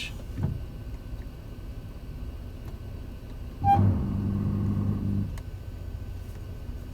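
2017 Honda Pilot's brake system buzzing as openpilot applies the brakes on its own: a scratchy buzz that starts suddenly about halfway through, holds steady for about a second and a half, then stops.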